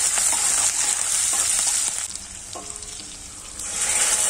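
Sliced onions sizzling in hot oil in a karahi, with a metal spatula scraping and stirring against the pan. The sizzle drops away for about a second and a half midway, then comes back strongly near the end.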